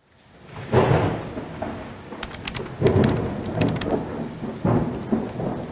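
Thunderstorm: rain hissing as it fades in from silence, with three rolls of thunder that each start sharply and die away, about a second in, near three seconds and near five seconds.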